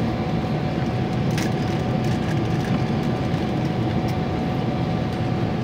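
Steady cabin noise inside a Boeing 777-200 on its approach descent: the low, even rush of engines and airflow, with a faint steady tone above it and a light click about a second and a half in.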